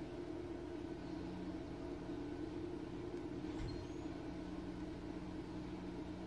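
Faint, steady low hum of room tone, with a soft tick about three and a half seconds in.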